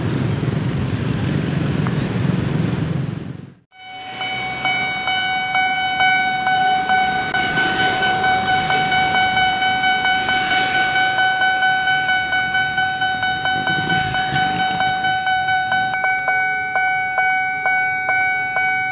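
Motorcycles running across the crossing. After a sudden cut, the railway level crossing's electronic warning bell rings steadily in one high tone at about two strokes a second, signalling an approaching train.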